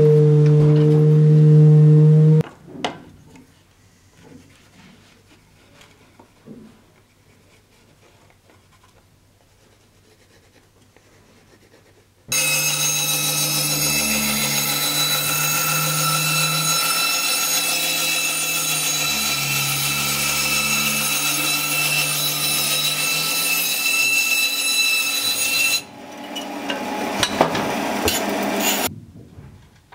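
Benchtop bandsaw cutting a thin wooden board: it starts about twelve seconds in, runs loud and steady for about thirteen seconds, drops lower for a few seconds and stops near the end. Before that, a steady hum cuts off about two seconds in and is followed by quiet with faint knocks of handling.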